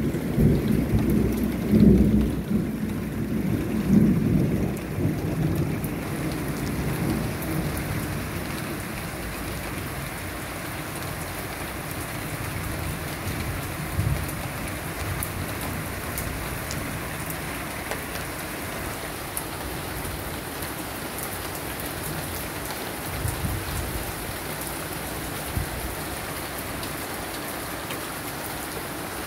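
Thunder rumbling over steady rain in a thunderstorm. The rumble swells three or four times in the first few seconds and fades, leaving the even sound of rain, with a brief low thump about halfway through.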